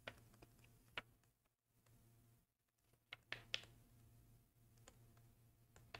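Near silence broken by a few faint, short clicks: a stylus tapping on a tablet screen while handwriting.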